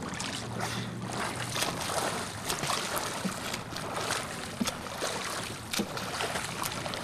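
Water splashing and churning from a swimmer's front-crawl arm strokes close by, in irregular splashes.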